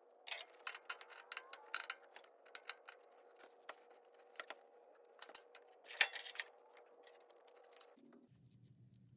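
A run of irregular sharp clicks and light metallic rattles, as of small metal tools or parts being handled, loudest about six seconds in. A faint steady hum underneath changes to a lower hum near the end.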